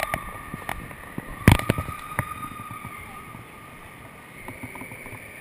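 Echoing din of an indoor amusement park with a faint steady high hum, broken by several sharp knocks and clunks from the ride car or the camera being handled. The loudest knock comes about one and a half seconds in.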